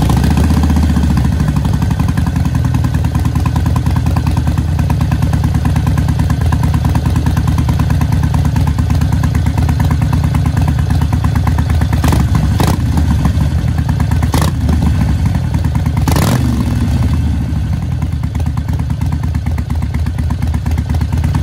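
Harley-Davidson Forty-Eight's 1200 cc air-cooled V-twin running at idle, loud and steady with a fast even throb, through Vance & Hines Shortshots pipes fitted with glass-wool-packed Quiet Baffle inserts. A few short blips of throttle come around the middle.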